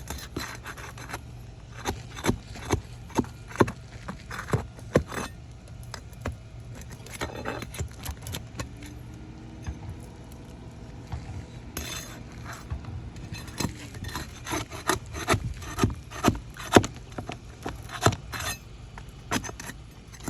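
Asphalt roof shingles being lifted and pried apart: an irregular string of sharp cracks, snaps and scrapes as the sealed tabs tear loose. The shingles are delaminating as they come up.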